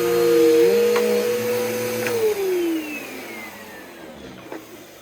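Bissell PowerForce Bagless Turbo upright vacuum running steadily, then switched off about two seconds in; its motor whine falls in pitch and fades as it winds down.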